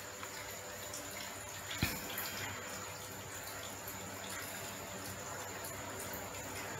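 Steady running and trickling water, with small drips and one soft thump about two seconds in.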